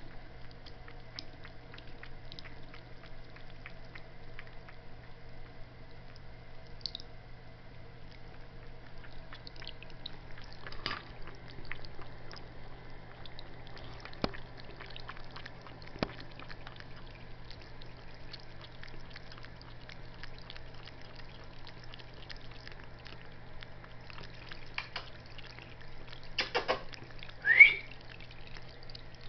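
A thin stream of water from a bathroom sink faucet running and splashing as it falls, over a steady low hum. Near the end comes a short rising high-pitched sound, the loudest moment.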